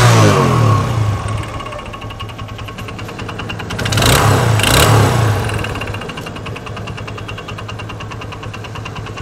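TVS Apache RTR 160's single-cylinder four-stroke engine running with engine flush oil in it, being blipped by hand: it falls from a rev at the start, idles, is revved again about four seconds in, then settles to a steady idle. The mechanic says this engine's crankshaft is faulty.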